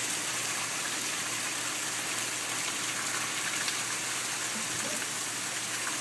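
Hard, steady rain pouring down, a dense even hiss with scattered faint patters.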